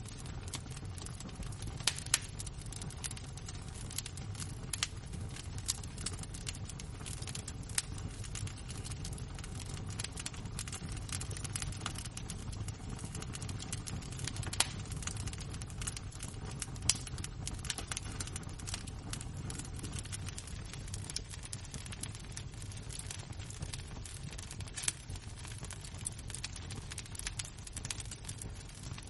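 Burning embers crackling, with many small irregular pops and snaps over a steady low rumble.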